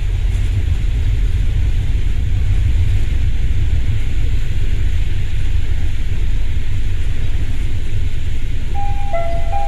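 Steady low rumble with wind buffeting the microphone. Near the end, a few short clear tones sound, like a chime.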